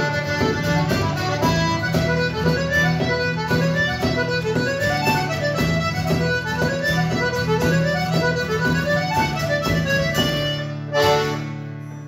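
Button accordion playing a quick traditional tune with acoustic guitar and bodhrán. About eleven seconds in, the tune ends on one held chord that fades away.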